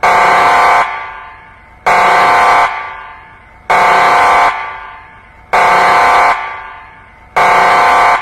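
Emergency alert alarm tone: a harsh, buzzing horn-like blast less than a second long, sounding five times at an even pace of about one every two seconds, each blast trailing off in an echo.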